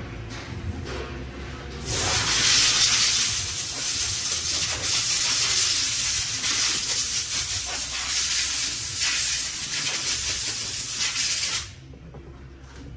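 A pressurised spray hissing steadily for about ten seconds as the transmission's clutch plates are sprayed clean. It starts about two seconds in and cuts off sharply about a second before the end.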